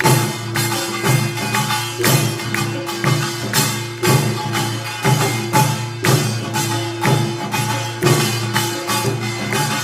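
Korean nongak (pungmul) percussion band playing in the Buan style, with accented strokes about twice a second over a steady held tone.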